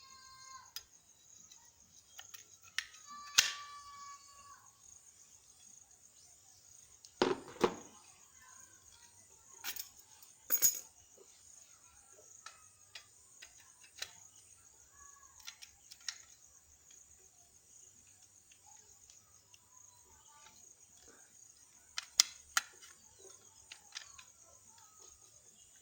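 Metal mortice lock parts (handles, spindle and lock body) being handled and fitted together: scattered clicks and knocks, a few sharper clinks, one of them ringing briefly. Crickets chirr steadily in the background.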